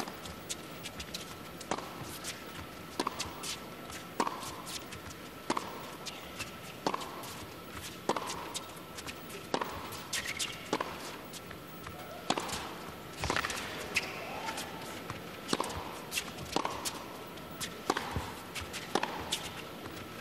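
Tennis rally on an indoor hard court: rackets striking the ball back and forth, with the ball bouncing on the court. Each stroke is a sharp pop, one every second or so.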